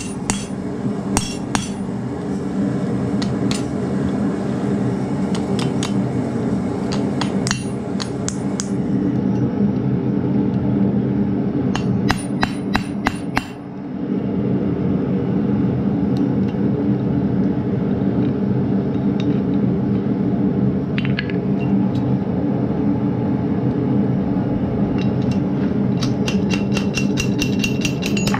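Hand hammer striking a steel drift into hot mild steel on an anvil to punch a square hole: sharp ringing metal blows, several in the first few seconds, a quick run about halfway through and another run near the end, with pauses between. A steady low hum runs underneath.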